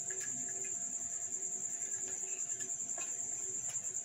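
Cricket trilling steadily in a high, fast pulse, with a few faint clicks as bare wire ends are twisted together by hand.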